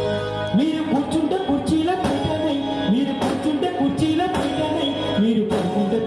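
Live Telugu folk music: hand-held frame drums beating a busy rhythm with an electronic keyboard, and a singing voice over them.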